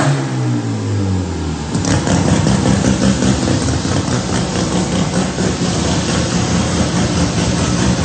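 Turbocharged 13B rotary engine winding down after a pull on a chassis dyno, its pitch falling steadily, with a sharp crack right at the start and another about two seconds in. It then settles into a rough, uneven idle.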